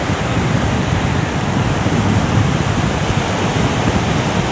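Steady surf washing onto a sandy beach, with wind noise on the microphone.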